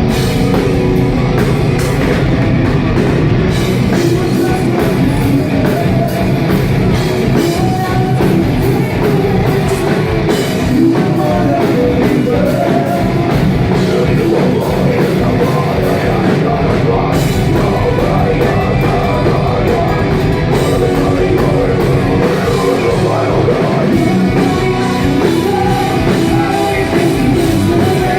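Live metal band playing loud, with heavy drums, distorted guitars and vocals, recorded on a phone that distorts under the volume.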